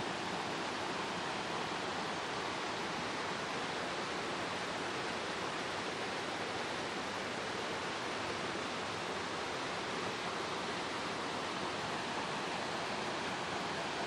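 Steady rush of a stream tumbling over rocks, an even, unchanging water noise.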